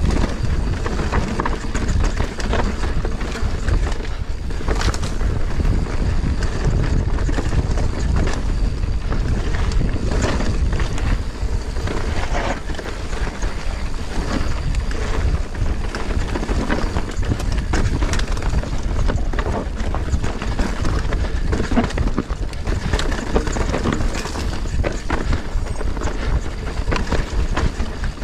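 Wind buffeting the microphone while a mountain bike descends a rough dirt trail: tyres rolling over loose dirt and stones, with a constant clatter of rattles and knocks from the bike.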